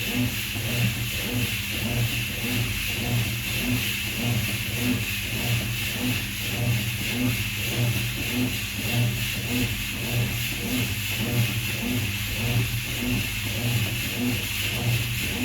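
Washing machine running and agitating: a steady motor hum with an even rhythmic pulse a little under twice a second.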